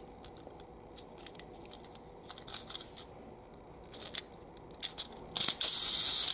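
Faint clicks and taps of a small plastic toy engine being turned over in the hands, then a little over five seconds in a loud steam hiss starts and holds steady.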